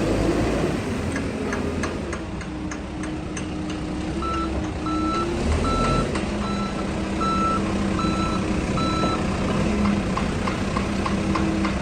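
Backhoe loader's diesel engine running steadily while its reversing alarm beeps in a regular string from about four seconds in to about nine seconds, with light ticking before and after the beeps.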